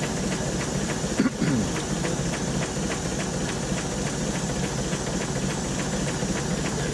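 Vertical steam engine of the steam launch Consuta running, its moving parts ticking in a steady rhythm of about four beats a second over a constant hiss and low hum. A brief squeak a little over a second in.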